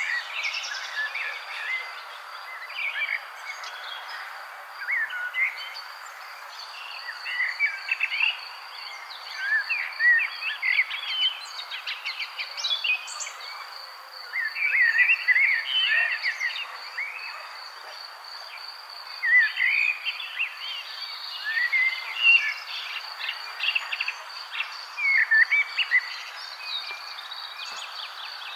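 Birds chirping and singing in many short rising and falling calls, over a steady, evenly pulsing insect trill.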